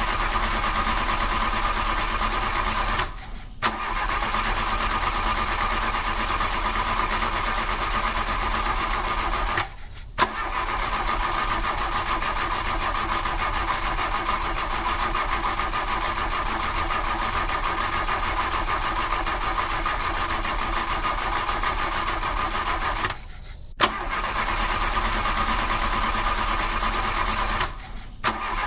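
Car starter motor cranking the engine over and over without it catching: the car won't start. The cranking runs in long stretches broken by four short pauses, and most restarts begin with a click.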